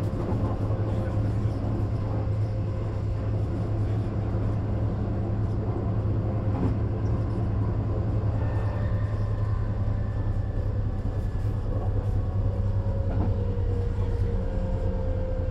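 Bombardier/Alstom class 422 S-Bahn electric multiple unit running between stations, heard from inside the passenger compartment: a steady low rumble and hum from the running gear and traction equipment. About halfway in, a thin whining tone from the traction drive comes in, and a lower tone slowly shifts in pitch near the end.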